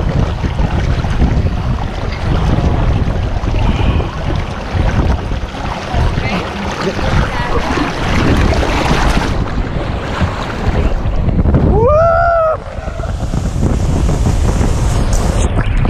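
Wind buffeting the microphone over rushing water, with one high cry about twelve seconds in that rises and then falls, lasting about a second.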